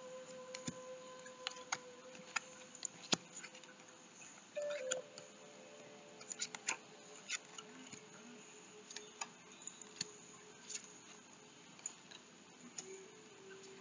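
Tarot cards being handled and laid down on a wooden table: scattered faint clicks and taps of cards against each other and the tabletop, over a faint steady hum.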